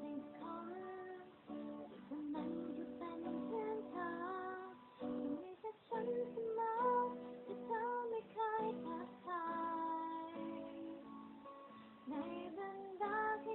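A woman singing a melody over guitar accompaniment.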